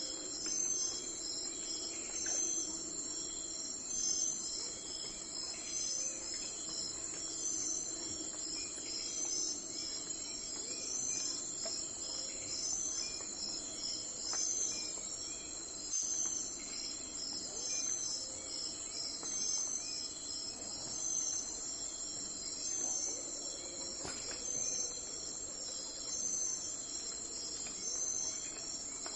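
Crickets chirping in a steady, high-pitched chorus, with a pulsing pattern that repeats about every second and a half.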